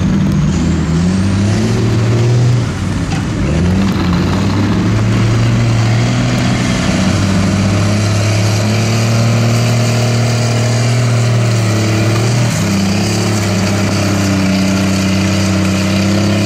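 Off-road race truck's engine running hard under heavy load as it churns through deep mud. The revs rise and fall over the first few seconds, then are held high and steady, dipping briefly about twelve seconds in.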